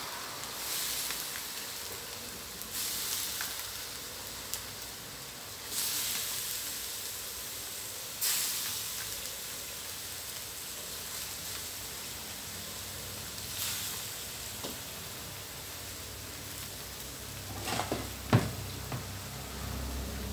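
Pork and red curry paste sizzling in a wok as handfuls of cauliflower and carrot are dropped in, each handful setting off a fresh surge of sizzling, about five in all. A few sharp knocks near the end.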